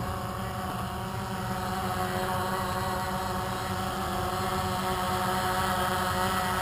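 A multirotor drone's electric motors and propellers whining steadily as it hovers low, with several pitches sounding together and growing slightly louder as it hangs near.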